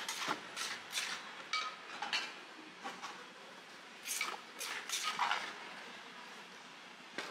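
Ceramic plates and bowls and utensils clinking and knocking together as they are handled, a string of light clinks, some briefly ringing, that thins out over the last couple of seconds.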